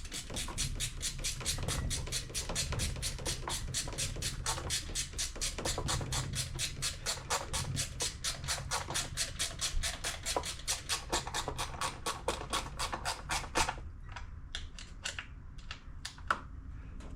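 Ratchet wrench clicking steadily, about four to five clicks a second, as the replacement ignition coil's mounting bolts are run in. The clicking stops about three-quarters of the way through, and a few scattered tool clicks and one sharp knock follow.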